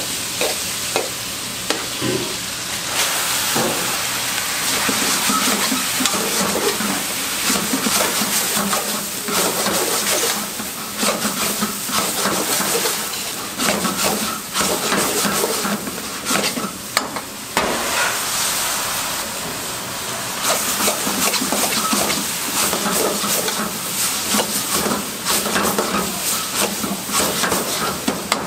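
Sliced onions and vegetables sizzling in a hot wok while a metal ladle stirs and scrapes them around the pan, with frequent clicks and knocks of the ladle against the pan over the steady sizzle.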